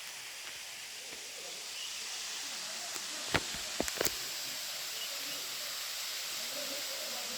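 Waterfall rushing: a steady hiss of falling water, a little louder from about two seconds in, with a few sharp knocks between three and four seconds in.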